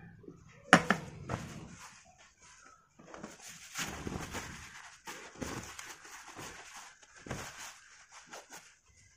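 A sharp knock as the air-horn compressor's motor housing is set down on a tiled floor, followed by several seconds of rustling and small handling ticks.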